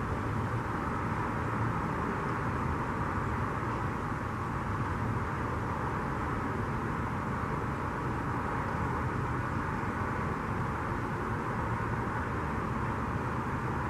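Steady outdoor background noise: an even, continuous hum with no separate sounds standing out.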